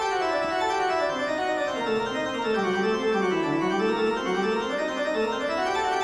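Keyboard music with an organ-like tone: a run of notes stepping down in pitch for about three seconds, then climbing back up.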